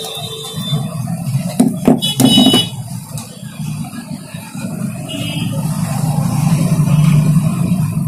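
Steady low mechanical rumble that grows louder towards the end, with a few sharp knocks about two seconds in as metal motor parts are handled on the bench.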